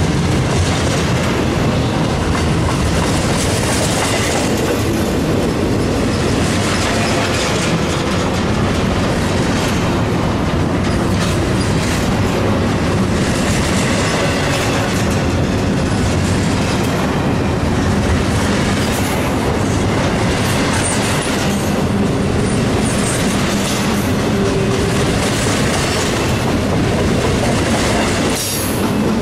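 Double-stack intermodal freight cars rolling past close by: a steady, loud rumble of steel wheels on the rails, with repeated clacks as the wheel sets pass.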